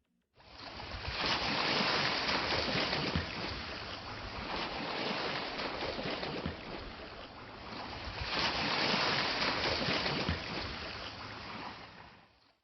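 Ocean waves washing on a shore, a steady rushing wash that swells twice, then cuts off abruptly near the end.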